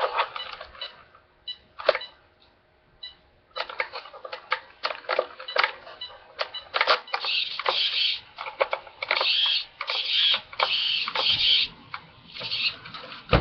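Traxxas Stampede 2WD electric RC truck stuttering in short bursts with rapid clicking and chatter as its throttle is worked, louder and more continuous in the middle. The owner thinks the batteries are dead.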